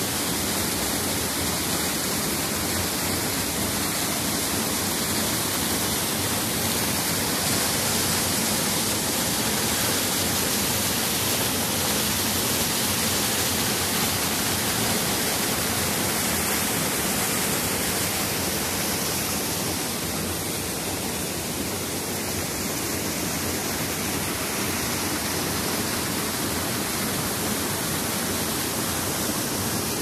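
A small waterfall pouring over rocks into a stream: a steady, even rush of water.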